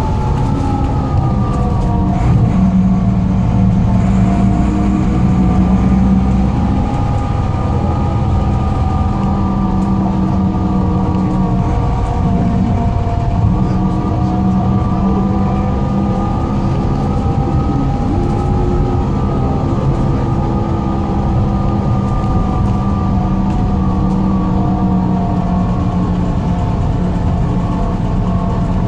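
Volvo Ailsa double-decker bus's front-mounted Volvo TD70 turbocharged six-cylinder diesel heard from on board, pulling hard as the driver thrashes it, its note rising and falling gently with road speed.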